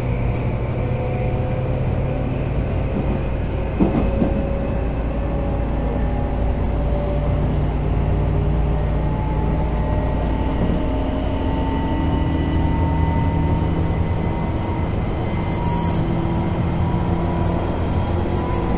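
Tobu 9000 series chopper-controlled motor car running, heard from inside: motor and chopper whine with several tones slowly rising in pitch as the train picks up speed, over a steady wheel-on-rail rumble. A single knock about four seconds in.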